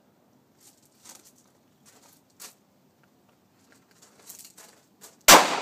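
Faint clicks and handling noises, then near the end a single loud handgun shot that rings out and dies away.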